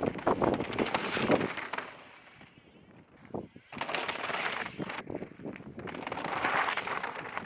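Mountain bike tyres crunching and rattling over loose rock and gravel on a descent, in a few bursts with a short quiet spell and a single knock about halfway through.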